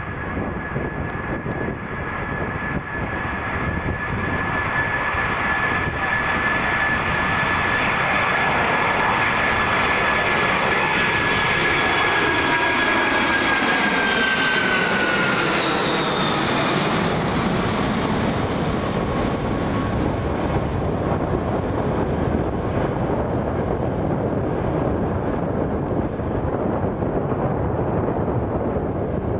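Four-engined Boeing 747 jet at takeoff power, climbing out: a high engine whine over a steady roar. The whine drops in pitch as the jet passes overhead about fifteen seconds in, and the roar carries on as it climbs away.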